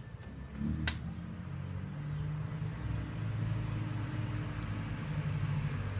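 A click about a second in, then a steady low motor hum that slowly grows louder.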